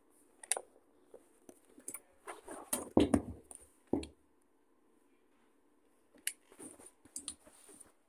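Handling noise: scattered clicks, knocks and rustles, with a louder cluster of thumps about three seconds in and more small clicks near the end.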